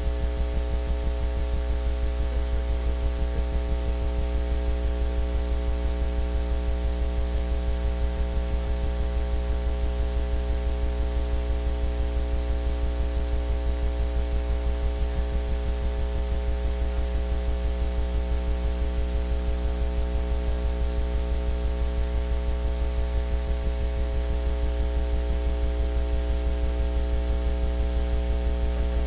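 Loud, steady electrical mains hum with a stack of buzzing overtones, pulsing a few times a second; no voices come through over it.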